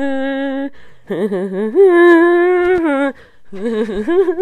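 A woman humming wordless long held notes, with short breaks between them. The third note, about two seconds in, is higher and louder than the others.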